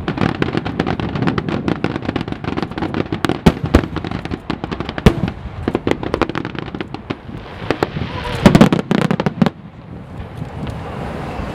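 Aerial fireworks going off in rapid succession, a dense stream of sharp bangs and crackles. It thins out past the middle, then a loud cluster of bursts comes about three-quarters of the way through before dying down.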